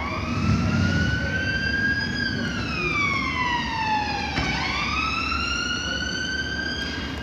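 London Underground S Stock train's traction motors whining, rising in pitch, sliding down, then rising again.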